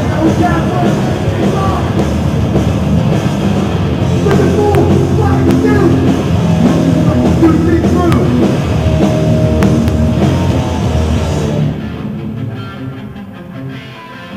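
Live hardcore punk band playing loud and heavy, with drums, distorted guitars and shouted vocals. About twelve seconds in, the full band cuts off abruptly, leaving a quieter guitar and bass part.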